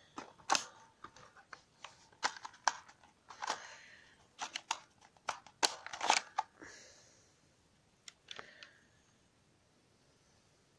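Sharp plastic clicks and clacks from a plastic toy M1911 pistol and its magazine being handled while foam rounds are loaded. The clicks come scattered through the first six seconds, then twice more about eight seconds in.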